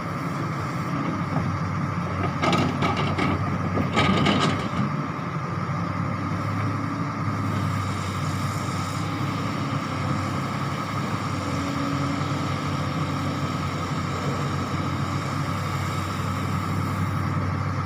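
Excavator diesel engine running steadily under work. Two short clattering bursts come about two and a half and four seconds in.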